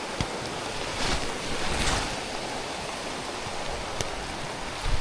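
Steady rushing of a stream's flowing water, swelling slightly a couple of times, with a few faint knocks.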